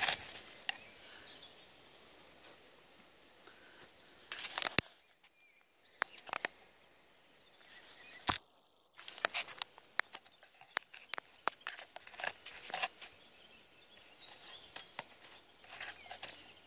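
Air Arms S200 .177 PCP air rifle being fired and handled: a sharp crack about five seconds in, another a few seconds later, then a run of smaller clicks, over a faint outdoor background.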